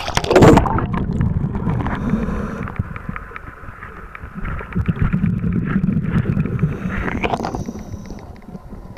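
A splash as the camera goes under the surface of a swimming pool, then muffled underwater rumbling and bubbling from the diver, swelling and easing a few times, with another short gush of bubbles near the end.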